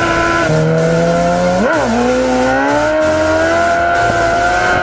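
Motorcycle engine pulling under way, heard through a helmet-mounted microphone with wind rushing over it. The engine pitch climbs, rises and falls quickly about a second and a half in as the throttle is blipped or a gear changes, then climbs slowly again.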